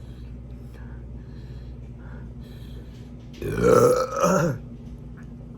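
A man lets out a loud burp in two pushes, lasting about a second, a little over three seconds in; the last push falls in pitch.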